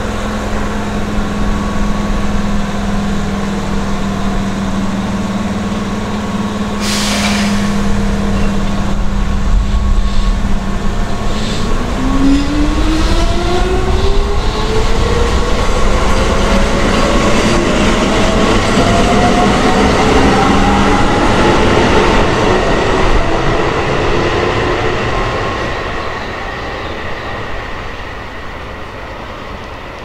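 Keihan 1000-series electric commuter train starting off beside the track: a steady electrical hum and a short hiss about seven seconds in. From about eleven seconds the traction motor whine rises steadily in pitch as the train accelerates, over wheel and rail rumble.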